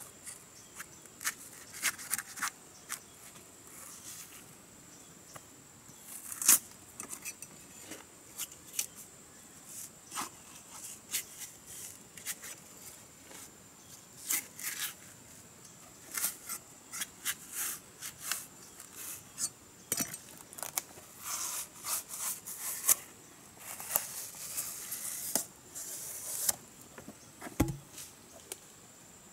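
Machete blade prying and splitting bark off a log section: irregular sharp cracks and scrapes, with a stretch of rasping as the bark tears away later on and a dull thump near the end. A faint steady high-pitched insect drone runs underneath.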